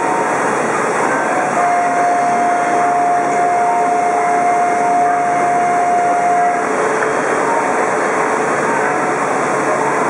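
Steady whirring hum of an E4 series Max double-deck Shinkansen train standing at the platform. About a second and a half in, a single steady high tone starts and holds for about five seconds.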